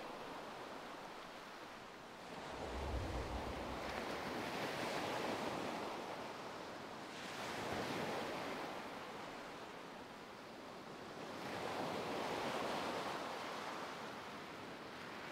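Ocean surf breaking and washing up a beach, the rush rising and falling in slow swells every few seconds.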